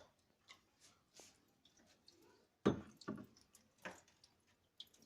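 Water dripping and trickling inside a refrigerator as hot water is poured into the freezer drain and runs out underneath, a sign that the rear drain hose is clogged. A sharp knock comes about two and a half seconds in and a smaller one near four seconds.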